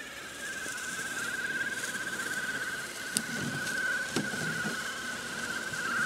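Axial SCX6 1/6-scale electric RC crawler driving, its motor and drivetrain giving a steady high whine that wavers slightly in pitch. Two short clicks come about a second apart midway through.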